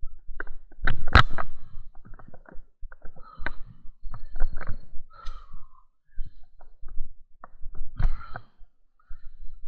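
Footsteps and the rustle of leaves and branches as people push through dense undergrowth, with irregular snaps and knocks; the loudest knock comes about a second in.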